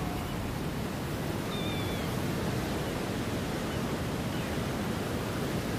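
Steady rush of wind and sea surf around an ocean island, with a couple of faint short high calls about two seconds in.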